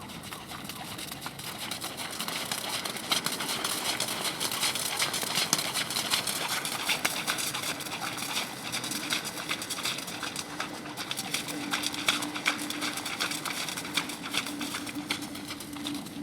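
Hoofbeats of a ridden Thoroughbred horse on the arena footing, an uneven run of clip-clops and sharp clicks and rattles. A steady hum joins about nine seconds in.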